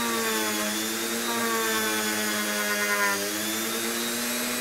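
Dremel rotary tool with a sanding drum running steadily against EVA foam, a continuous motor whine. Its pitch sags and recovers once or twice as the drum is pressed into the foam.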